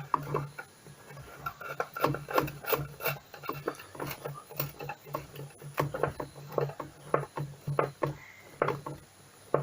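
A tool tightening a small bolt at the centre of a washing machine's drive assembly: a series of short scraping, rasping clicks, about one to two a second.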